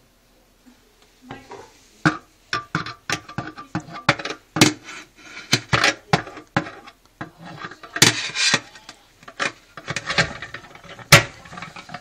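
Dishwasher wire racks and metal rack rail being handled, rattling and knocking in a rapid, irregular string of sharp clicks that starts about a second in.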